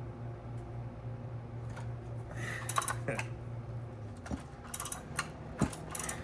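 A run of sharp clicks and light knocks, plainly the chainsaw being handled and moved, mostly in the second half, over a steady low hum.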